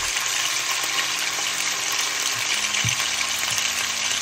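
Bite-sized chicken pieces sizzling steadily in hot oil in a wok as they are added to fry, with a few faint knocks in the second half.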